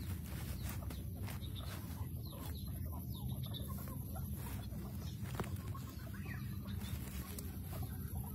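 Short, faint high chirping calls, scattered throughout, over a steady low rumble, with a few soft clicks.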